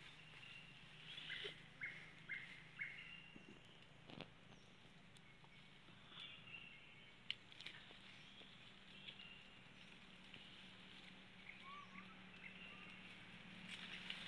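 Faint, short, high-pitched animal chirps and squeaks, a quick run of four about two seconds in and more scattered later, with a few sharp clicks against a quiet background.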